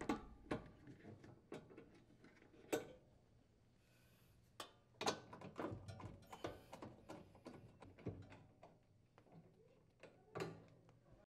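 Faint, scattered clicks and taps of a nut driver unthreading the lower mounting screws of a refrigerator's ice auger drive motor assembly, metal tool against the sheet-metal housing, with a few louder knocks.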